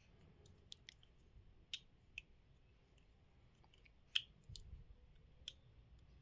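Faint, scattered clicks and taps of small tools and plastic parts being handled, about seven in all, the sharpest about four seconds in.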